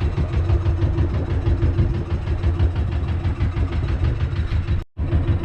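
Engine running steadily at idle, with a fast, even pulsing beat and a steady hum; the sound cuts out for a split second near the end.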